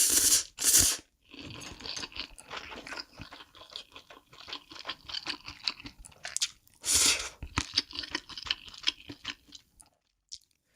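Close-miked mouth sounds of someone eating instant noodles: steady wet chewing, with louder, drawn-out slurps right at the start, just under a second in, and about seven seconds in.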